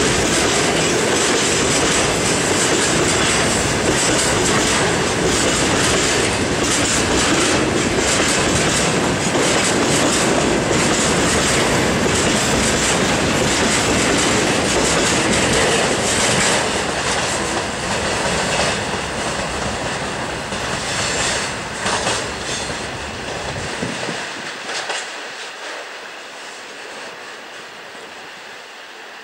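Freight train of railway tank cars rolling past, the wheels clattering over the rail joints in a steady, loud rumble. About two-thirds of the way through, the sound fades as the end of the train moves away, with a few sharper clanks near the end.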